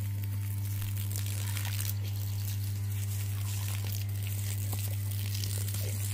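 Water spraying from a garden hose and pattering on grass and dogs, over a steady low electric hum that stays loudest throughout.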